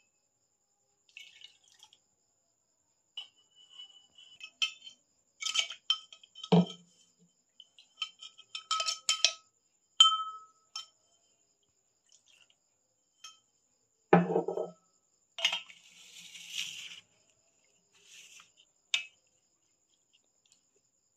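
Kitchen vessels clinking and knocking as they are handled: scattered light clinks, some ringing briefly, with two heavier, duller knocks, one about six seconds in and one about fourteen seconds in.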